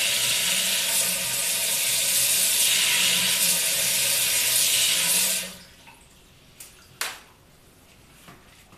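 Water running steadily, then shut off about five and a half seconds in; a sharp click follows about a second and a half later.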